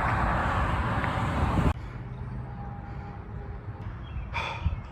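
Loud, steady rushing noise that cuts off abruptly under two seconds in, leaving a fainter low rumble, with a short burst of noise near the end.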